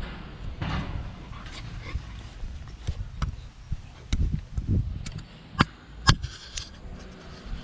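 A dog close to the microphone, among scattered knocks and low thumps, with two sharp clicks about half a second apart past the middle.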